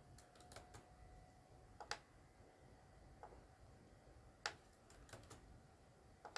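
Faint, scattered clicks of a computer keyboard and mouse during a code edit: a dozen or so single clicks at uneven intervals, the sharpest about two seconds in and about four and a half seconds in.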